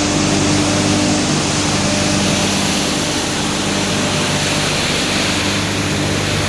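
High-capacity hammer mill for crushing wood, running with a loud, steady noise over a low hum.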